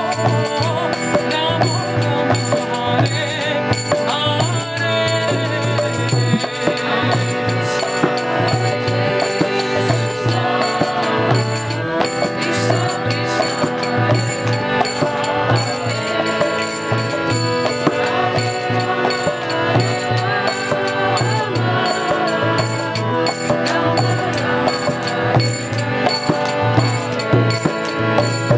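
Kirtan music: a harmonium sounds sustained chords under chanting voices, a mrdanga drum beats a low pulse, and karatalas hand cymbals clash in a fast steady rhythm.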